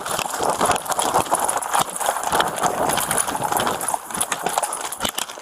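Hurried footsteps with clothing and gear rubbing and knocking against a body-worn camera: a run of irregular clicks and thumps over rough rustling.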